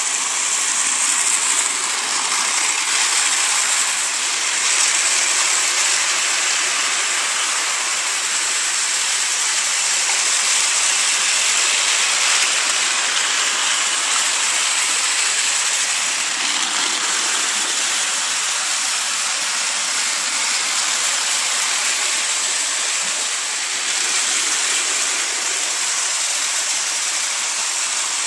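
Battery-powered Tomy toy trains running on plastic TrackMaster track: a steady, even whirring hiss of small motors, gears and wheels.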